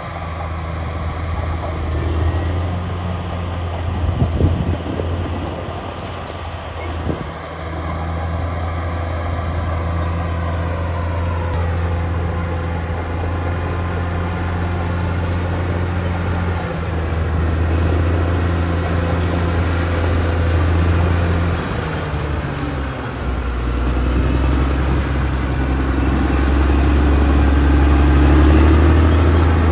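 Caterpillar D6R bulldozer's diesel engine running under load, with the steel tracks clanking and squealing. There are a couple of sharp knocks early, and the engine note drops about a third of the way in.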